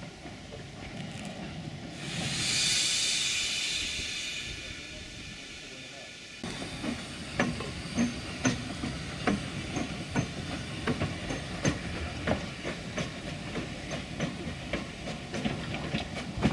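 Small narrow-gauge steam tank locomotive letting off a hiss of steam that swells and fades over a few seconds. Then the locomotive rolls slowly along the track with irregular clanks and knocks from its wheels and running gear.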